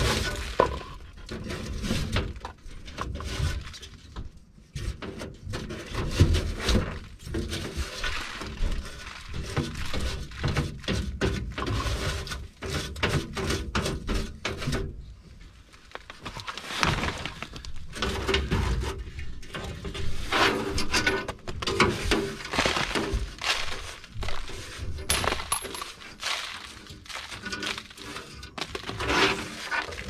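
Bristle brush scrubbing dust off the sheet metal and parts of a Lennox gas furnace, in quick, irregular scratching strokes with small clinks and knocks.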